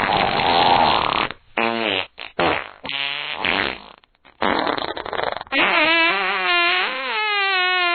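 A string of fart sound effects: a long noisy, airy one first, then a few short pitched ones, another noisy one, and a long fart whose pitch wobbles up and down through the last two and a half seconds.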